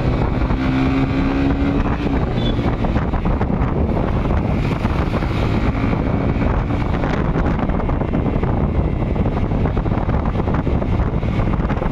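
Motorcycle engine running at road speed, with heavy wind buffeting the microphone.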